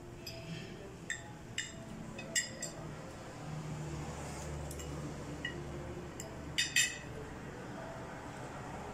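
Metal cutlery clinking against a plate, about eight sharp clinks scattered through, with the loudest two close together about two-thirds of the way in.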